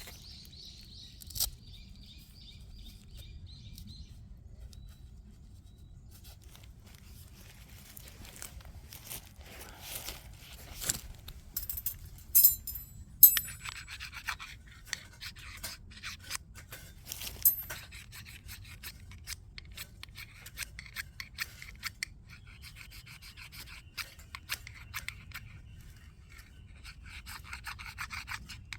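Something being handled up close, with rubbing, scratching and rasping scraping sounds. A cluster of sharp clicks and knocks comes about twelve seconds in. A faint high chirping is heard in the first few seconds.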